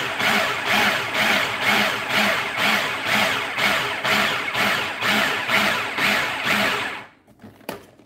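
Food processor running, its blade churning a coarse smoked herring and vegetable mix, with a regular wobble of about two or three beats a second. It cuts off about seven seconds in, followed by a couple of light clicks.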